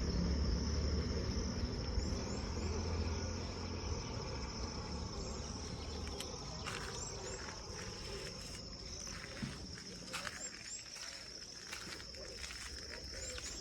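Insects trilling as one steady high-pitched drone, over a low rumble that fades away during the first few seconds. Scattered light clicks and knocks come in the second half.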